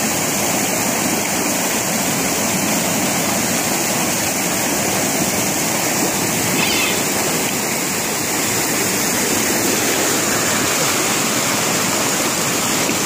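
River water rushing over granite boulders in a small cascade and pouring into a pool: a steady, even rush.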